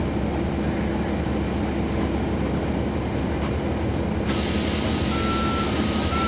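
Steady drone of a NABI 40-foot transit bus's Cummins ISL9 diesel engine, heard from the back of the bus. About four seconds in, a loud hiss starts, and a beeping tone that alternates between two close pitches sounds over it.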